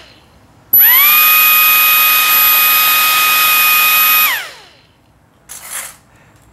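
Electric ducted fan of a foam RC jet, driven through its ESC, spinning up sharply about a second in to a steady high whine, holding for about three and a half seconds, then winding down with falling pitch; the fan running shows this ESC is good. A brief short noise follows near the end.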